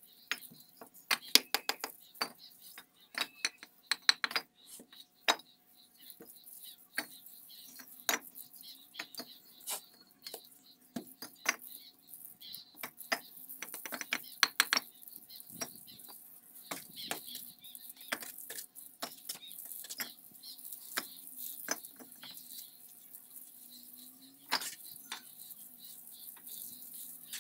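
Bricklaying: a steel trowel scraping and clinking against a metal mortar pan, spreading mortar and tapping fired-clay bricks into place, heard as irregular sharp clicks and knocks, thickest in the first few seconds.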